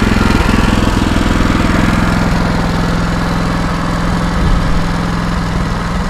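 Yamaha snowblower's engine running steadily.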